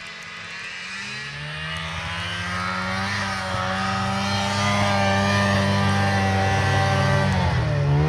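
Snowmobile engine coming closer, growing louder over the first few seconds and then running at a steady pitch; near the end its pitch dips briefly and then climbs again.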